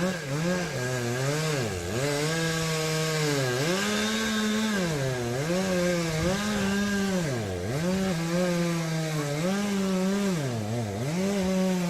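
Two-stroke chainsaw running at high revs and cutting wood, its engine note dropping and picking back up every second or two as the cut loads it.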